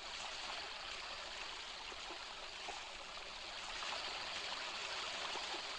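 Waterfall sound effect: a steady rush of falling water.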